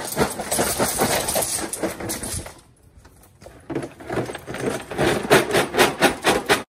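Small grey landscaping stones tipped from a bucket into a hole in a gravel bed, clattering and rattling as they fall. The pour pauses for about a second a little over two and a half seconds in, then goes on.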